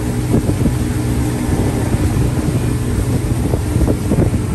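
Motorboat engine running steadily at speed, with water rushing past the hull and wind buffeting the microphone.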